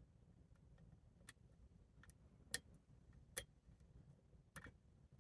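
Faint, sharp clicks of a hook pick working the pins of an American 1100-body padlock, a handful at irregular spacing, the loudest about two and a half and three and a half seconds in.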